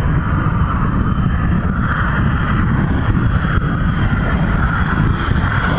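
F-22 Raptor's twin jet engines heard in flight: steady jet noise with a deep rumble and a faint high whine above it.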